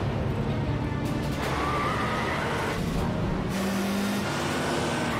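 Tense action music over the sound of cars driving fast in a chase, including a Ford Focus Mk II hatchback, with engines running hard and tyre noise.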